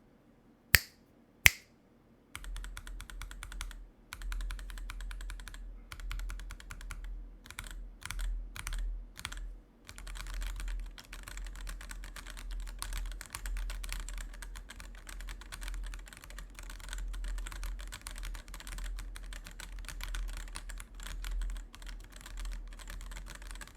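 Fast typing on an Akko 5075S custom mechanical keyboard with linear switches: a steady clatter of keys bottoming out, with a spell of slower single keystrokes about eight to nine seconds in. Two sharp knocks about a second in come before the typing starts.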